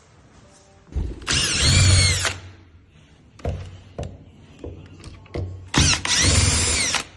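Cordless drill-driver running in two short bursts of about a second each, its pitch rising and falling within each run, with a few light knocks in between.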